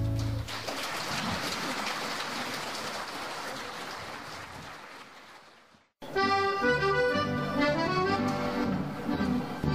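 Accordion music ends about half a second in, then audience applause fades away over about five seconds. After a sudden cut, accordion music with held chords starts again, the accompaniment of the shanty choir's next song.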